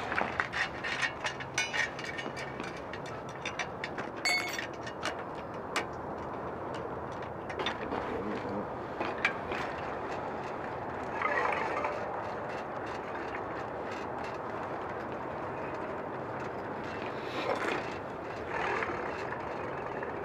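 Light, irregular metallic clicks and clinks of bicycle parts being handled and worked on, thick for the first several seconds and then thinning out. A steady background of outdoor noise runs underneath, with a few brief swells.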